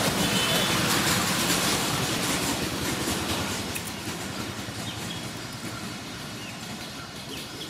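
Wet cast net rustling and scraping over muddy ground and dead leaves as it is handled, a dense noisy rustle that fades over the last few seconds.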